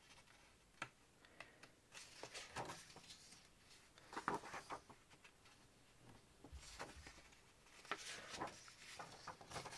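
Faint rustling of sheets of patterned scrapbooking paper being lifted and turned over by hand. The rustles come as several short, separate sounds, the loudest about four seconds in and again around eight to nine seconds.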